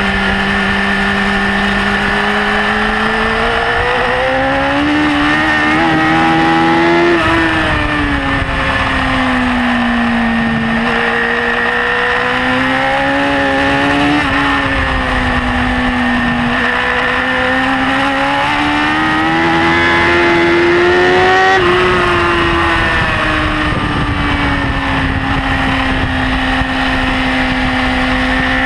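BMW S1000RR's inline-four engine running at high revs on track, its pitch climbing under acceleration and dropping sharply about seven seconds in and again about twenty-one seconds in as the rider backs off, then rising again near the end.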